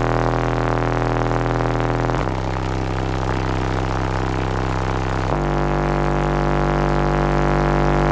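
Four American Bass VFL 18-inch subwoofers walled into a truck cab, playing loud held bass notes that step to a new pitch twice, about every three seconds, heard from inside the cab.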